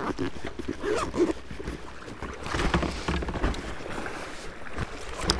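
Wind buffeting the microphone over water lapping around a kayak, with a few light clicks and knocks.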